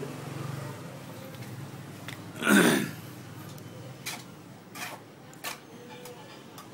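A person's short, loud throat sound about two and a half seconds in, followed by three brief knocks a little over half a second apart.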